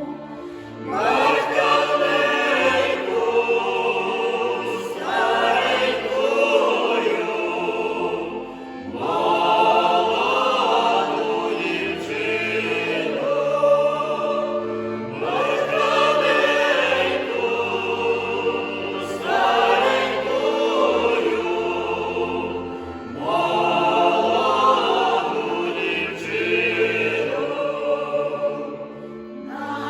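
Amateur folk choir singing a Ukrainian folk song, one phrase after another, each lasting a few seconds.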